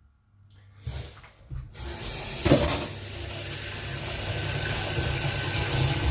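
Water running from a tap into a sink, a steady rushing that starts about two seconds in, after a couple of light knocks, with a sharper knock just after it starts.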